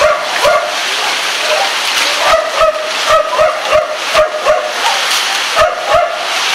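Steady rain falling, with a dog barking in quick runs of about three barks a second.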